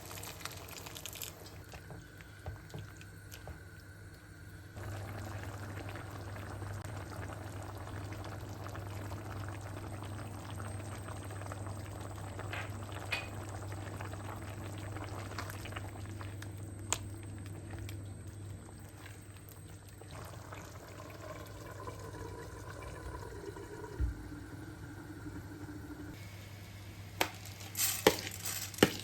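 Food cooking on the stove, liquid bubbling in a pan or pot, under a steady low hum that starts about five seconds in and stops near the end. A few sharp knocks come near the end.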